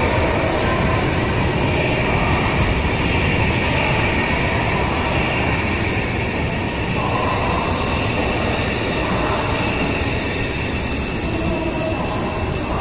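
A 16-car CR400AF-A Fuxing high-speed electric multiple unit rolling past at low speed as it pulls into the station. The dense rumble of wheels and carriages eases a little as the train slows, with faint high whining and squealing tones coming and going.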